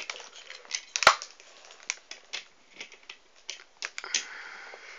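Model railway wagons being handled and set onto the track: a run of small plastic clicks and taps, the loudest about a second in, with a brief scraping rustle near the end.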